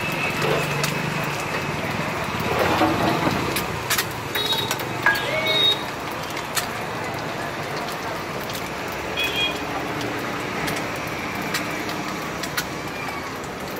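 Eggs sizzling on a large flat iron griddle, mixed with passing street traffic, with a few sharp clinks of steel utensils.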